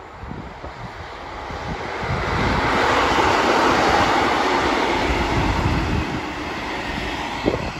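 Class 158 diesel multiple unit passing close by as it slows for the junction: engine and wheel noise swell to a peak a few seconds in, then fade as it moves away.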